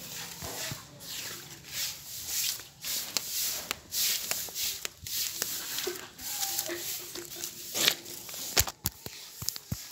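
Long-fibre hand broom swishing over a concrete road in quick repeated strokes, with a few sharp knocks near the end.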